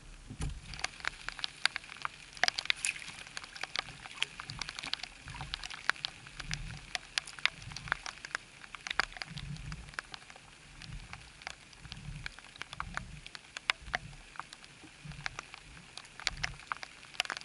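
Light rain: raindrops pattering on an umbrella overhead in many irregular sharp ticks, with soft low thumps underneath.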